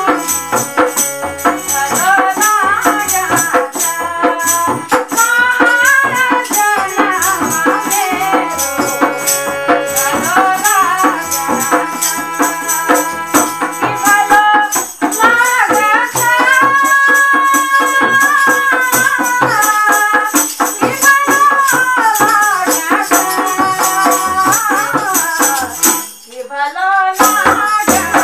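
A woman singing a Pahadi folk melody with long held notes, keeping time with a hand-shaken jingle rattle, its jingles rattling steadily under the voice. The music breaks off briefly near the end, then resumes.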